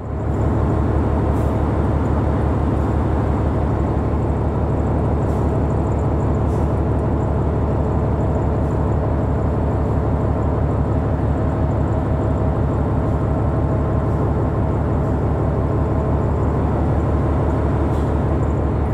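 Ship's engine machinery running with a steady low rumble and a fast, even pulse.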